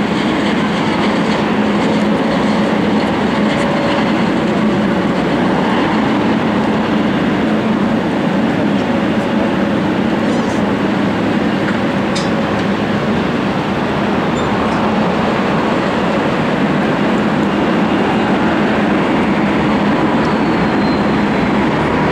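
Boeing 747-8's four GEnx turbofan engines at takeoff thrust: a loud, steady rush of jet noise with a low, steady hum underneath.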